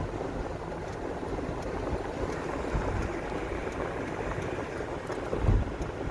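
Steady road and engine noise heard from inside a moving car, a low rumble with a hiss of tyres and wind. A brief low thump comes about five and a half seconds in.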